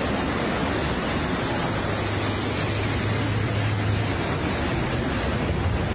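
Floodwater surging through a street, a loud, steady rush of churning water. A low hum sits under it for a couple of seconds in the middle.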